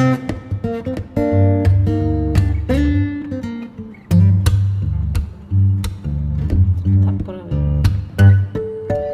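Background music: an acoustic guitar piece, plucked and strummed, with a steady bass beat.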